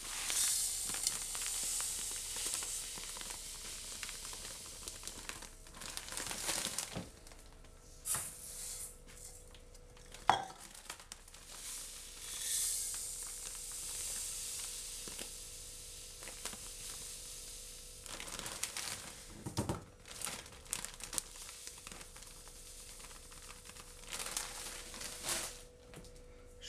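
Granulated sugar poured from a plastic bag into a plastic measuring cup and emptied into a steel pot: the hiss of running sugar grains and the crinkle of the bag come in several bursts. There is a single sharp knock about ten seconds in.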